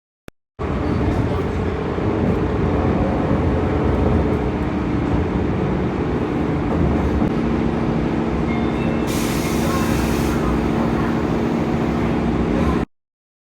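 A train running: a steady rumble with low steady hums, and a hiss lasting about a second and a half about nine seconds in. It starts and stops abruptly.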